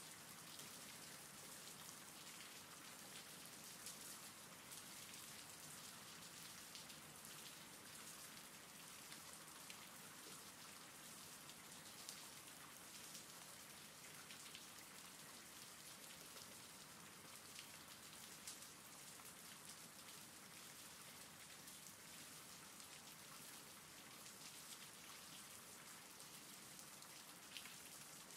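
Faint, steady rain: an even hiss with scattered drops ticking on a surface.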